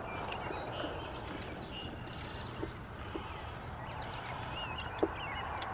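Outdoor ambience: a steady background hiss with small birds chirping faintly. A few soft clicks come from wires and small parts being handled, the clearest one near the end.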